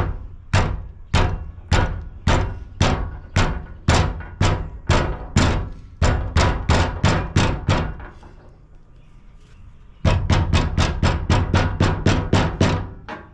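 Rubber-ended tire hammer tapping a REV HD wheel seal into a trailer's steel wheel hub to seat it. The sharp blows come about two a second and quicken, stop for about two seconds, then resume as a faster run of taps.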